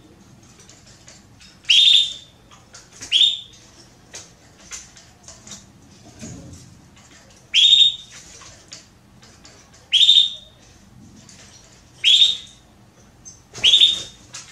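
Female Belgian (domestic) canary calling to be mated: six loud, short rising chirps spaced about two seconds apart, with faint softer chirps in between.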